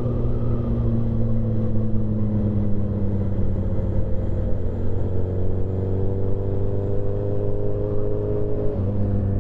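Motorcycle engine running at a steady cruise. Its pitch edges up slightly about halfway through and shifts abruptly near the end.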